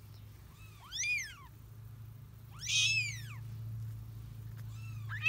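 Newborn kittens mewing, high and thin, each cry rising and falling in pitch: two calls about two seconds apart, with a louder third starting at the very end. The kittens are crying for their mother.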